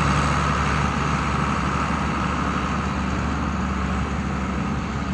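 John Deere 4850 tractor's turbocharged six-cylinder diesel running steadily as the tractor drives away, slowly getting fainter.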